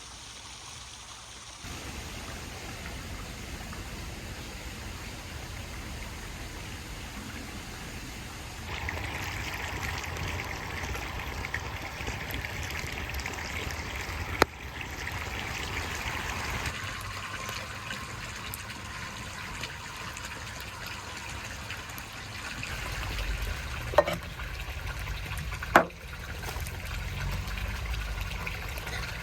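Water trickling and running steadily, with a few short sharp knocks, one about halfway through and two close together near the end.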